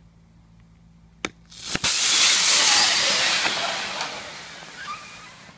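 A hammer knocks a screwdriver into a lithium-polymer (LiPo) battery pack twice, about half a second apart. The punctured cell then vents thick smoke with a loud hiss that starts suddenly, peaks, and slowly fades over about four seconds.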